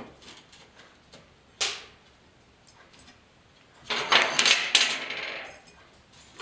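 Metal clinks from handling small steel parts and tools on a workbench: a sharp click about one and a half seconds in, then a brighter, ringing clatter lasting about a second and a half near the four-second mark.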